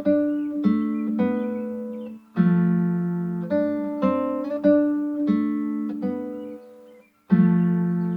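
Acoustic guitar playing: chords and single notes plucked and left to ring out, with a short break about two seconds in and a fuller stop of about half a second near the end.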